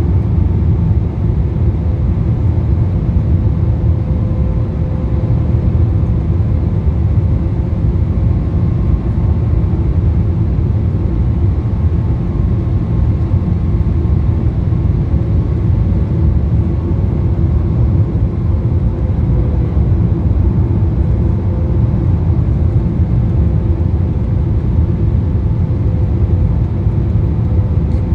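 Boeing 777-300ER cabin noise on approach with flaps extended, from a seat over the wing: a steady low rumble of airflow and the GE90-115B engines, with faint steady humming tones above it.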